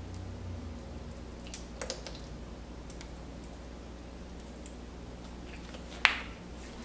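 A plastic squeeze bottle drizzling honey mustard over a bowl of food, with a few faint clicks and squirts, then one sharp click about six seconds in.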